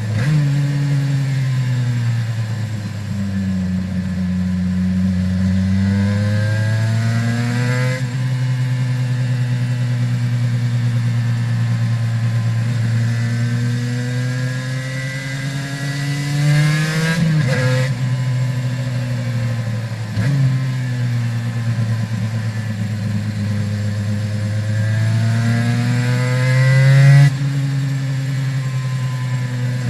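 Aprilia RS 250's two-stroke V-twin engine with Arrow exhausts, heard from onboard while riding. Revs climb and fall with the throttle, and the pitch drops sharply four times after a climb as the rider shifts gear.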